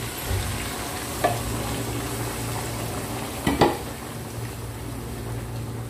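Chicken adobo sizzling in a hot pan as its boiling broth goes in, with a cooking utensil knocking against the pan a couple of times.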